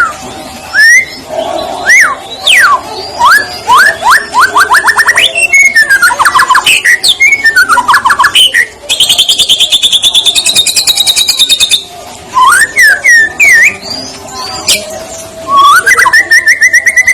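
White-rumped shama (murai batu) singing a loud, varied song: rising and falling whistled sweeps and fast trills, with a buzzy rapid rattle lasting about three seconds in the middle and a quick run of repeated notes near the end.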